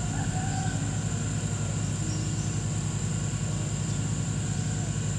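An engine running steadily, a low drone with rapid even pulsing.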